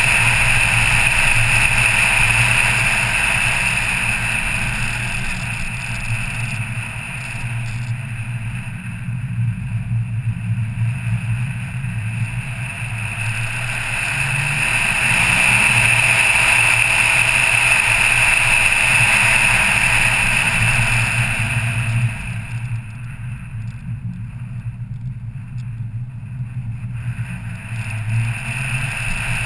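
Car engine and wind and road noise while driving a winding mountain road. The engine note swells and eases with the bends, and drops back abruptly about two-thirds of the way through, staying quieter for several seconds.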